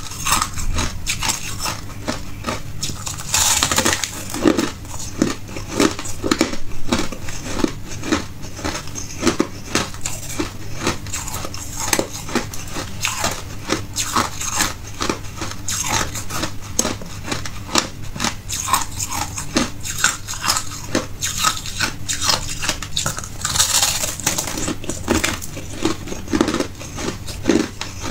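Hard ice being bitten and chewed, a continuous run of crunches and sharp crackles, with louder bites a few seconds in and again near the end.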